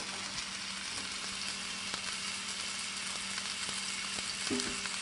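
Flour-dusted chuck roast searing in hot olive oil in a nonstick braiser: a steady sizzle with faint crackles.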